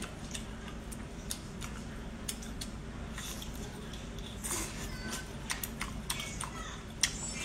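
Close-up eating sounds of spicy sea snails: a run of small wet mouth clicks and smacks as the meat is chewed, at irregular intervals over a faint low hum.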